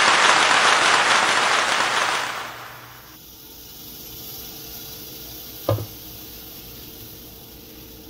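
Chickpea-flour pancake batter sizzling loudly as it is poured into a hot non-stick frying pan, the sizzle dying down to a faint hiss after about two and a half seconds. A single sharp knock comes near six seconds in.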